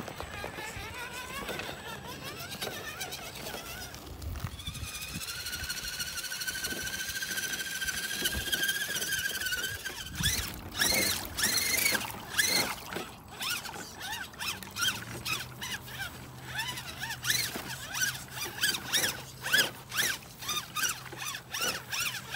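Redcat Everest 10 RC rock crawler's electric motor and geared drivetrain whining: a high, steady whine that rises slightly and holds for several seconds, then about halfway through breaks into short on-off bursts with sharp clicks and splashes as the truck churns through mud.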